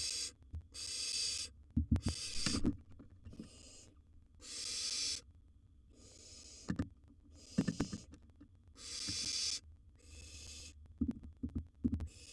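Barn owl nestlings giving their rasping hiss, the begging 'snore', again and again, about one every second, mixed with sharp low knocks and scuffles inside the wooden nest box.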